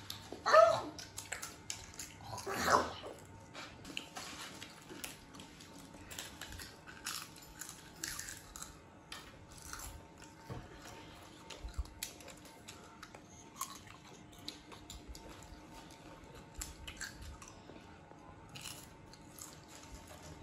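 Children crunching and chewing Lay's potato chips, with scattered crisp crackles. Near the start a child's voice calls out twice, louder than the chewing.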